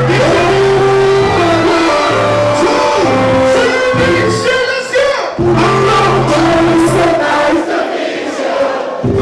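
Music with sung vocals over held bass notes.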